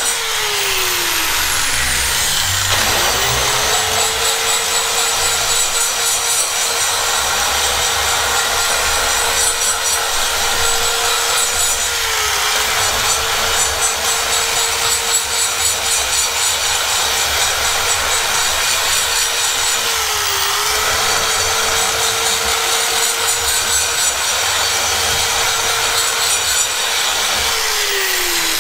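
High-speed die grinder with a burr porting a Mazda 12-valve cylinder head: a steady high whine over a scratchy grinding rasp. The motor sags briefly a few times as the burr bites, winds down and back up about two seconds in, and winds down again near the end.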